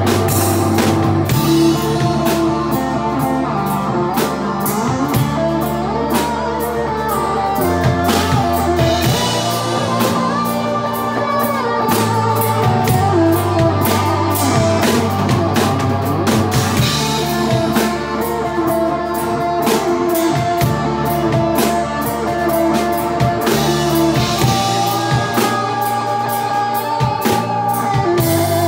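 Live rock band playing: a drum kit hitting in a steady rhythm under electric guitars, with long low notes that change every few seconds.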